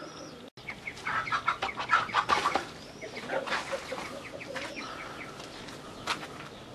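Domestic pigeon sick with Newcastle disease flapping its wings against the ground, with short clucking bird calls. The flapping is busiest in the first two seconds or so, then fades to a few scattered calls.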